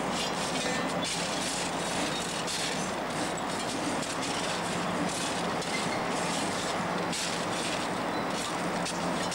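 Class 56 diesel locomotive with its 16-cylinder Ruston-Paxman engine running steadily as it moves past, its wheels clattering irregularly over the rails.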